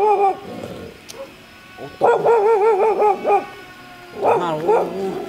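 A dog whining and howling in wavering cries: a short one at the start, a longer one about two seconds in, and a brief one near the end.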